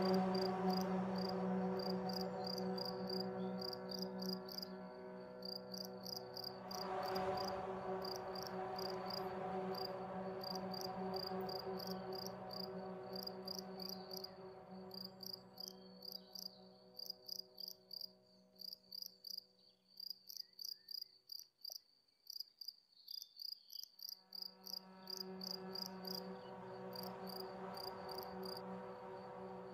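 Crickets chirping in a steady run of short, high, evenly repeated pulses. Beneath them a low held drone of several steady tones swells briefly early on, fades away about two-thirds of the way through and comes back near the end.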